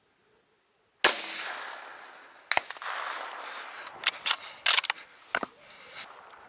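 A single rifle shot about a second in, its report fading away over a second or two, followed by a string of sharp clicks and knocks.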